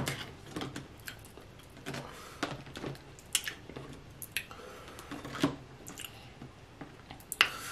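Close-miked eating sounds: wet chewing and mouth smacking, with irregular sharp smacks and clicks, the loudest a few seconds apart.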